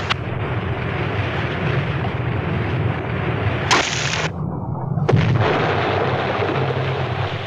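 Depth charges exploding: a continuous rolling rumble, with sharp blasts at the very start, near four seconds and about five seconds in.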